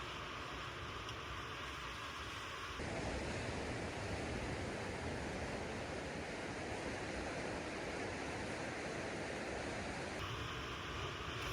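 Sea waves washing on the shore, a steady rushing surf. It switches abruptly about three seconds in and again near the end, where a thinner steady hiss takes over.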